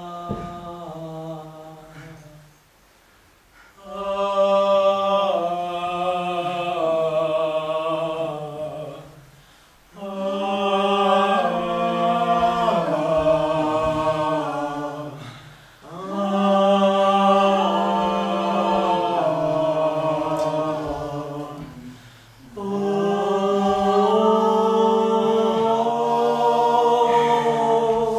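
Theatre chorus of several unaccompanied voices singing a slow chant in long held phrases of about five to six seconds, with a steady low note sustained beneath and short breaks between phrases.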